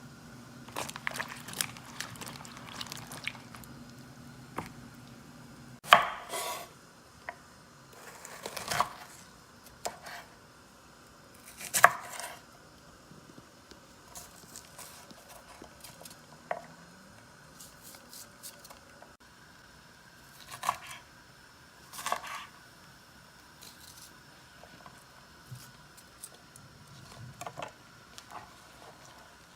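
Kitchen food-preparation handling: a series of irregular sharp knocks and clatters of utensils and dishes on a counter, with some rustling in the first few seconds. A low steady hum stops about six seconds in.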